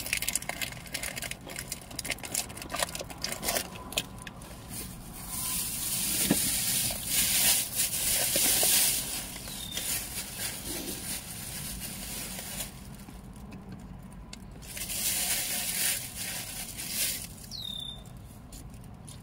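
Crinkling and rustling of a plastic chip bag: a run of sharp crackles over the first few seconds, then two longer stretches of rustling, about five seconds in and again about fifteen seconds in.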